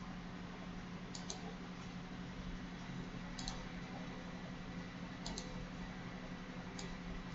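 Faint clicks from computer input while drawing on a pen tablet, often in quick pairs, coming about every one and a half to two seconds over a steady low hum.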